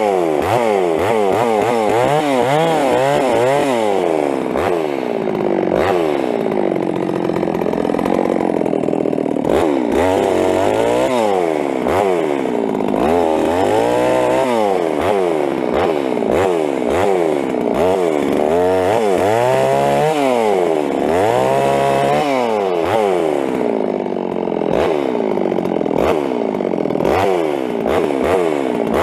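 Ported Stihl MS 660 two-stroke chainsaw limbing a fallen tree. The engine revs up and falls back again and again as it cuts through the branches.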